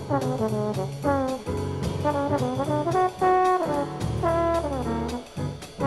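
1964 small-group jazz recording: a brass horn solos in short phrases, sliding between some notes, over a rhythm section with regular cymbal strokes.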